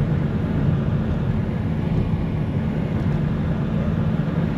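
A moving car's steady engine and road noise, a constant low rumble with a hiss above it.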